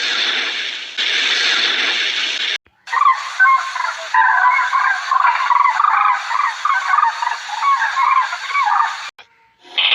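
A steady hiss for about two and a half seconds, then a cut to a dense run of short, rapid bird calls lasting about six seconds.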